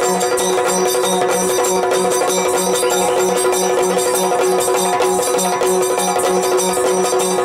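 Yakshagana background ensemble playing without singing: a steady held drone under an even, regular beat from the chende and maddale drums, with the bright clicks of small hand cymbals on top.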